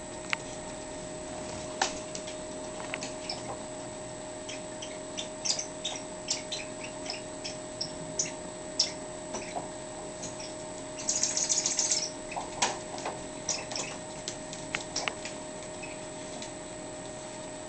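Miniature pinscher's claws clicking on a hardwood floor in scattered ticks as it moves about, with a quick flurry of scrabbling about eleven seconds in. A faint steady hum runs underneath.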